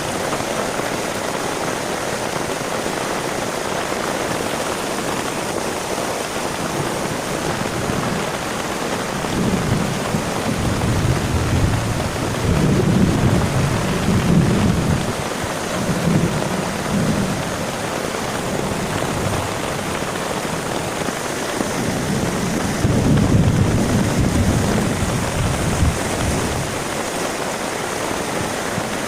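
Heavy rain falling steadily, with deep rolls of thunder rumbling twice: a long roll about a third of the way in and a shorter one later.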